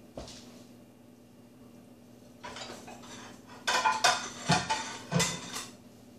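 Kitchenware being handled: a quick series of clinks and clanks of a pot and utensils, with a ringing metallic tone, starting about three and a half seconds in over a faint steady hum.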